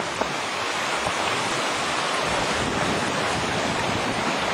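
Strong wind rushing over the camera microphone beside open lake water: a steady, even noise with no break.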